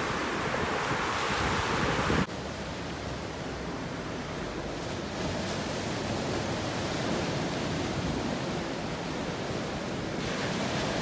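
Sea surf washing onto a sandy beach, a steady rush. Wind buffets the microphone for the first two seconds, then the sound drops abruptly and the surf goes on more quietly.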